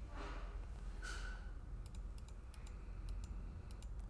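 Faint computer mouse clicks: a run of about nine quick clicks in the second half, as the loft's facet count is stepped up in the CAD software. Two soft hisses come in the first second or so.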